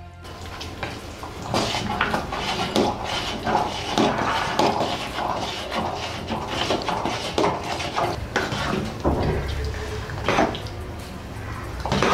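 Metal spoon scraping and clinking against a brass pot in irregular strokes while stirring thick rice payasam. The stirring keeps the mixture from sticking to the bottom as the jaggery melts into it.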